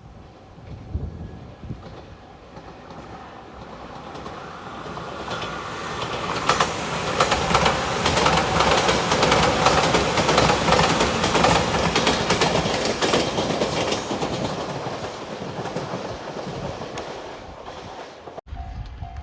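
Electric passenger train passing at speed: the rumble and wheel clatter swell, peak about halfway through, then fade away, and the sound cuts off suddenly near the end.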